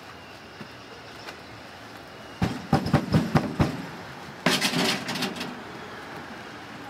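A quick run of about six heavy low thumps, then about a second later a short, loud, hissing crash that dies away.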